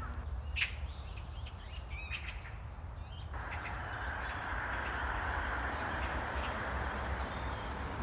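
Birds calling outdoors, with short chirps and a harsher call in the first seconds over a steady low rumble. About three seconds in, a steady rushing hiss comes in, and a few faint chirps continue over it.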